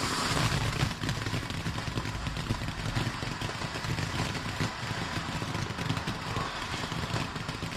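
Garden firework fountain lighting up suddenly and burning with a steady hissing rush full of fast crackles.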